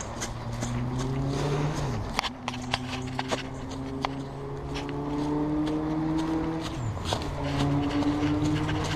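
A motor vehicle's engine accelerating. Its pitch climbs slowly, then drops sharply twice, about two seconds in and again near seven seconds, as it changes gear. Scattered sharp clicks sound over it.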